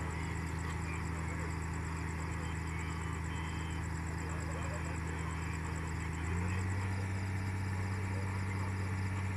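Heavy diesel engine of a railway recovery crane running steadily with a low hum, then throttling up about six seconds in: its pitch steps up and it gets louder, as when the crane takes up load.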